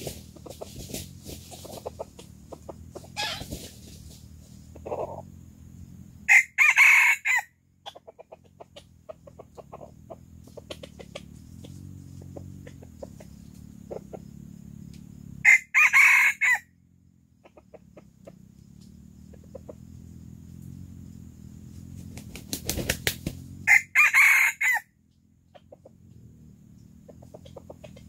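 A rooster crowing three times, each crow short, about a second long, and spaced roughly eight to nine seconds apart.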